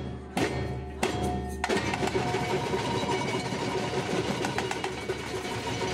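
Samba drum band playing a few loud unison strokes on the big bass drums, then breaking into a dense, continuous roll of many drums and percussion from about two seconds in.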